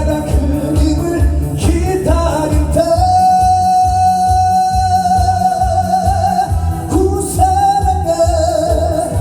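A singer over accompaniment with a steady beat, holding one long note from about three to seven seconds in, then moving on through the melody.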